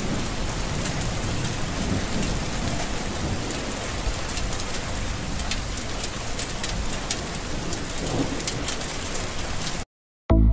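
Steady rain with a low rumble underneath, scattered with sharp drop ticks, cutting off suddenly near the end.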